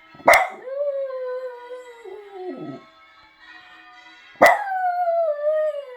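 A Jug (pug–Jack Russell cross) dog howling along to church bells: two loud bell strikes about four seconds apart, each followed by a long, wavering howl. The first howl slides down in pitch at its end.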